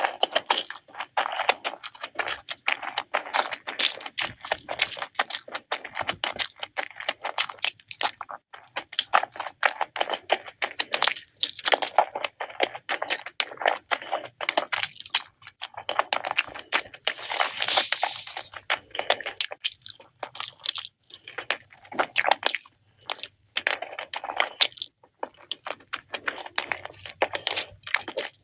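Close-up eating sounds: a person chewing and crunching food, with many quick irregular clicks, crackles and mouth smacks, and a longer wet hiss about two-thirds of the way through.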